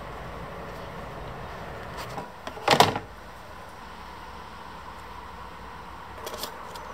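Handling noise from hands working with objects: one brief loud knock or rustle about three seconds in, a couple of faint clicks near the end, over a steady background hiss.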